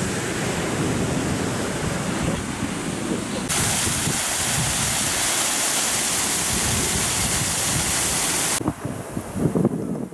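Ocean surf breaking on a beach, then from about three and a half seconds a waterfall splashing down a rock face, a steady bright hiss. It cuts off suddenly near the end, where wind gusts buffet the microphone.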